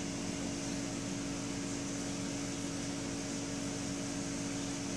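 Steady mechanical hum with a constant low tone over even background noise, unchanging throughout.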